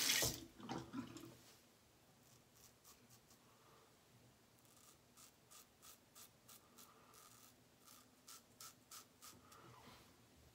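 Tap water running into the sink stops within the first second. It is followed by a run of faint, short, scratchy strokes, about two or three a second: a Blackland Sabre safety razor cutting lathered stubble on the upper lip.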